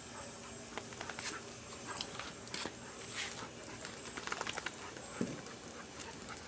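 A dog scampering about, its paws pattering in scattered light taps, with one short low whine about five seconds in.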